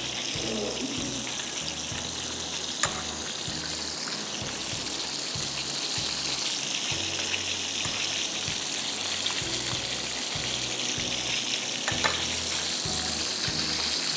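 Hot oil sizzling steadily in a frying pan, with a couple of light clicks.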